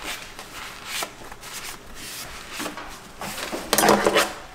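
A hand wiping the bottom of an empty wooden kitchen drawer with a paper towel: repeated soft rubbing strokes on the wood, with a louder scrape about four seconds in.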